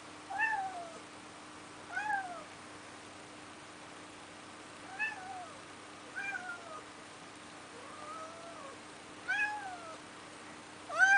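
Domestic cat meowing at a door, about seven meows a second or two apart, each one rising and then falling in pitch: demand meows to be let outside.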